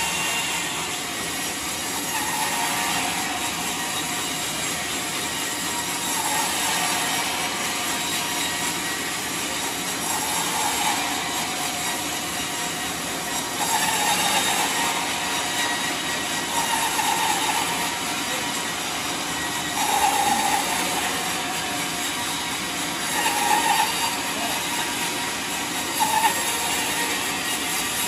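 Large band sawmill cutting lengthwise through a big trembesi (rain tree) log: a steady machine noise, with a ringing tone that swells and fades every three or four seconds.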